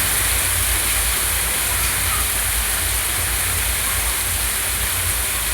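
Heavy rain and running rainwater making a steady, even rushing hiss, with a constant low rumble underneath.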